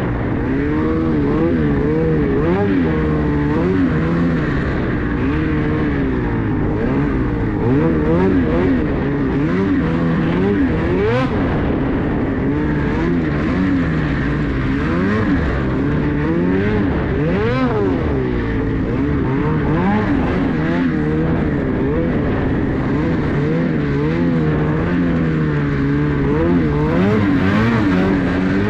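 Ski-Doo 850 two-stroke snowmobile engine under way through deep snow, its pitch rising and falling every second or two with the throttle.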